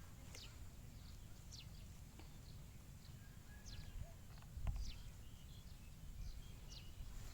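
Short, high bird chirps, each falling in pitch, repeat about once a second over a low rumble of outdoor noise. A single thump comes about four and a half seconds in.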